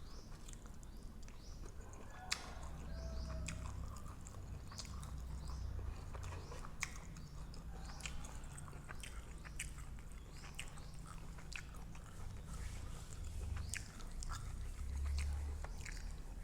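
A person chewing mouthfuls of grilled pork-neck salad, with many short wet clicks and smacks of the mouth.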